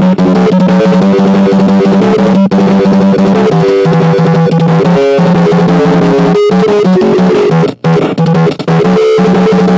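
Loud music with a drum kit and guitar, the music dropping out briefly about two-thirds of the way through.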